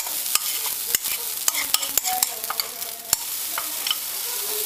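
Thick oat-bran galette batter sizzling as it lands in a hot, preheated non-stick pan. Many quick clicks and scrapes of a utensil against the bowl and pan sound over the hiss.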